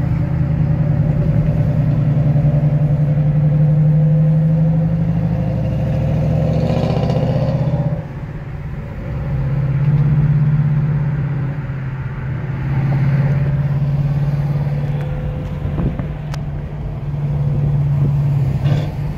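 Ford Mustang GT's 5.0 Coyote V8 with a resonator- and cat-deleted exhaust, pulling hard with a loud, steady exhaust note. About eight seconds in it drops off sharply, then swells again in several waves.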